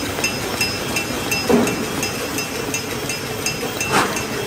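Sparkler stick machine running with a steady hum and a sharp, regular tick about three times a second. Two louder clanks come about one and a half seconds in and near the end.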